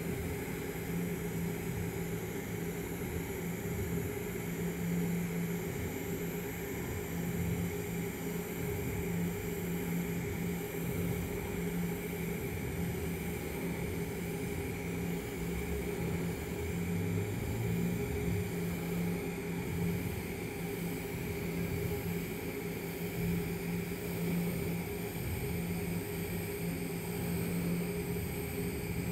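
TIG welding arc on a stainless steel pipe cap, run at 175 amps from an Everlast PowerTIG 250EX while a bead is laid: a steady, even hum and hiss with no breaks.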